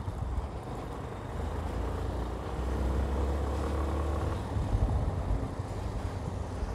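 Yamaha Ténéré 250's single-cylinder four-stroke engine running at low speed as the motorcycle rides along a dirt track, with a steady low rumble.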